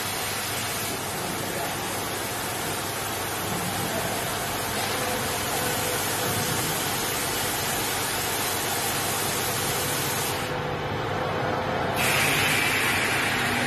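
Hot rivet welding machine hissing steadily while its heated riveting tips are pressed onto a plastic car trunk side trim panel. The highest part of the hiss drops out for a moment about ten and a half seconds in, then a louder, sharper hiss starts about twelve seconds in.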